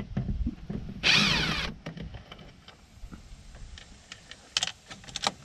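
Light clicks and taps of a screwdriver working a screw out of the plastic interior door-handle trim. One brief harsh rasp about a second in is the loudest sound, and a few sharp clicks come near the end.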